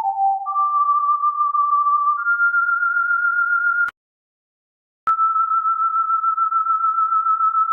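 Electronic pure tones, each held steady for a second or two before stepping to a higher pitch. They cut off with a click about four seconds in, and after about a second of silence a steady tone starts again with a click.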